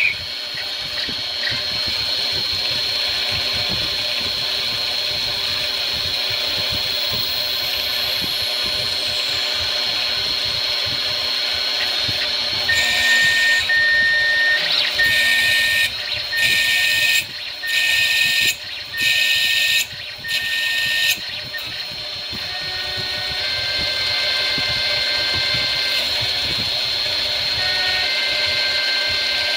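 Benchtop metal lathe running, with a steady motor whine and the noise of the tool cutting the spinning workpiece. From about 13 to 21 seconds in, the sound comes in about half a dozen louder bursts, each about a second long.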